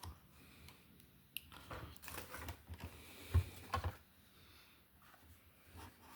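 Carded Hot Wheels blister packs being handled: plastic crinkling and clicking, with two soft thumps a little past the middle as a package is set down or knocked.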